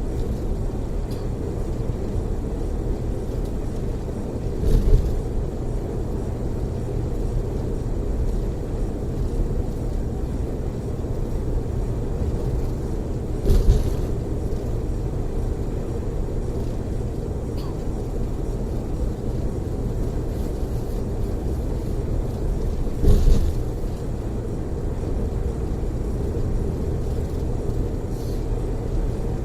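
Steady low rumble of a tour coach's engine and tyres heard from inside the passenger cabin on the freeway. Three brief thumps come about nine seconds apart.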